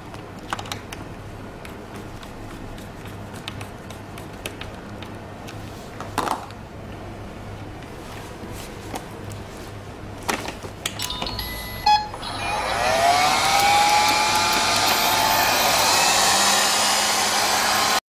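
Sharp X550 robot vacuum cleaner starting up about two-thirds of the way through: its fan motor whines up in pitch and then runs steadily and loudly. Before that there are scattered clicks and knocks as the vacuum and tools are handled.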